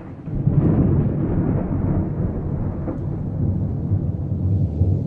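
Low rolling rumble of thunder, swelling in about half a second in and carrying on unevenly.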